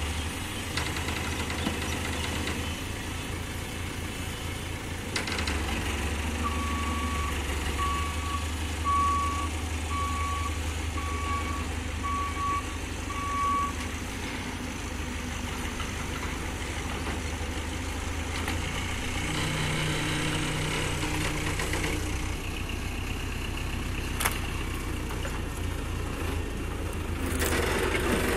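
Manitou telescopic handler's diesel engine running steadily. From about six to fourteen seconds in, its reversing alarm sounds about eight evenly spaced beeps. The machine gets louder near the end.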